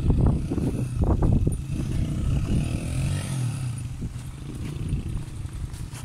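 Vehicle engine running on an off-road mountain track, a steady low rumble that is loudest in the first second and a half.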